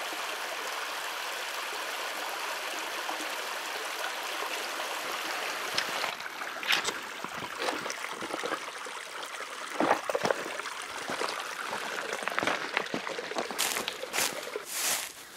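Water trickling steadily over the rocks of a small creek. About six seconds in the running water gives way to irregular crunches and knocks, like footsteps and handling in dry leaf litter and gravel.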